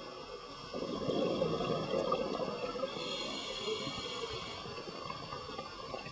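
Scuba diver's exhaust bubbles from the regulator underwater: a rush of bubbling from an exhalation starts about a second in and lasts about two seconds, then fades to weaker bubbling. Faint steady high-pitched tones run underneath.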